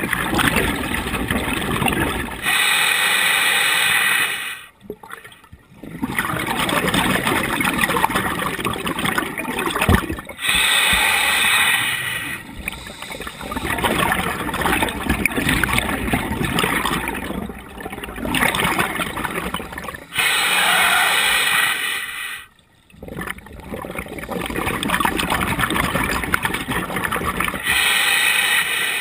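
Scuba regulator breathing underwater: a hissing inhale through the regulator lasting about two seconds, then a longer bubbling exhale, repeated about four times, with short pauses between breaths.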